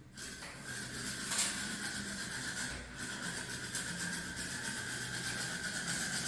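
A small machine running steadily, a continuous hum with a high whine held at one pitch.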